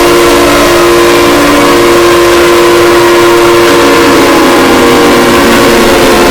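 Extremely loud emergency alert alarm: several steady tones sounding together as one chord, which begin to slide down in pitch about four seconds in.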